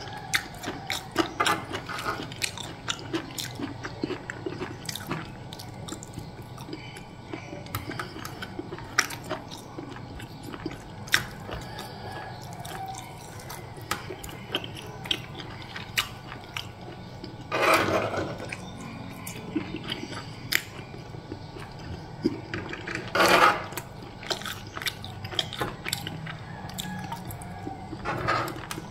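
Metal spoon and fork clicking and scraping on a plastic tray as food is gathered up, with chewing and biting between the clicks. Twice, about two-thirds of the way in and again some five seconds later, comes a louder rushing sound lasting about half a second.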